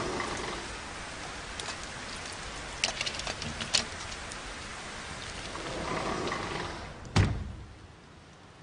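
Steady rain falling, with a few sharp drip-like ticks. A single dull thud comes about seven seconds in, after which the rain is quieter.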